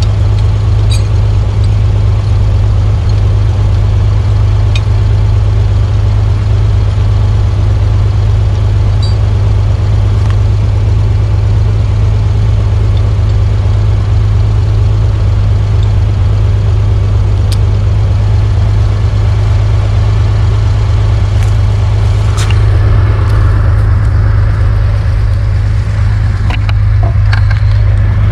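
Oliver 1850 tractor engine idling steadily, with a few light clicks over it.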